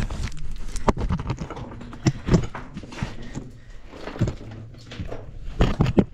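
A person scrambling down over loose rock: irregular crunching and scraping of boots and hands on stone, with sharper knocks of shifting rocks about two seconds in and near the end.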